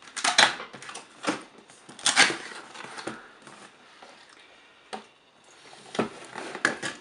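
Cardboard box being opened and handled: flaps pulled open with short rustling, scraping and light knocks of cardboard, loudest about half a second and two seconds in, with a quieter stretch before more handling near the end.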